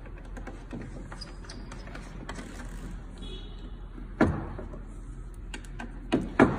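Test leads being plugged into the terminals of analogue lab meters: small plastic and metal clicks and handling noise, with louder knocks about four seconds in and twice near the end, over a steady low hum.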